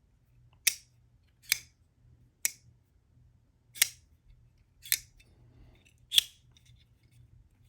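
Vosteed Ankylo folding knife being flicked open and closed on its push-button lock: six sharp metallic clicks, roughly a second apart, as the blade snaps into place and is released.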